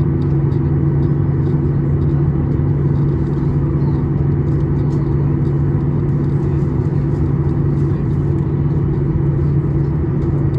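Cabin noise of a Boeing 737-800 taxiing, heard from inside at a window seat over the wing. The CFM56-7B engines run at low power, giving a steady low drone with a few constant hum tones.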